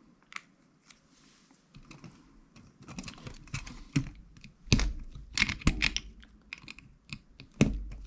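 Plastic Lego bricks being handled and pressed together: irregular small clicks and taps, with a few louder snaps in the second half.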